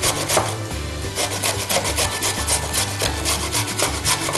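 A carrot being grated by hand on a flat metal grater: quick, even rasping strokes, one after another.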